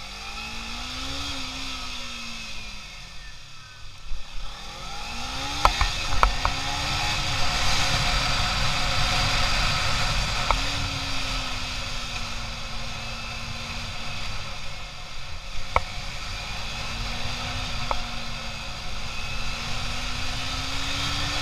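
Sport motorcycle engine running under way, its note dropping as it slows about four seconds in, then climbing with acceleration and falling back at gear changes, over steady wind rush. A few sharp clicks sound around six to seven seconds in and again near the end.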